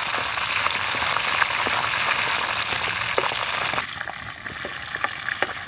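Fresh mint leaves deep-frying in hot oil in a kadai: a dense, steady sizzle and bubbling. About four seconds in it turns quieter, leaving scattered crackles and pops.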